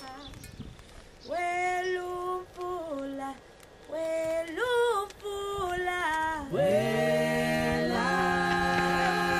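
Unaccompanied singing on the soundtrack: a high voice sings a slow melody of held notes in short phrases. About two-thirds of the way in, lower voices swoop up and join, holding notes together.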